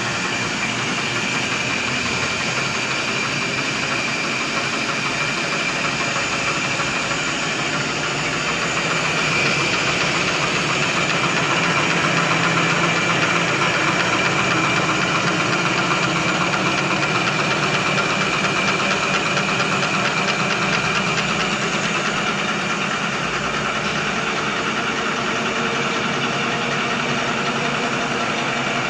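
Automatic napkin tissue folding machine (XY-OQ-7000A) running steadily: a dense, continuous mechanical din with a faint high whine. It gets a little louder about a third of the way in and eases back after about two-thirds.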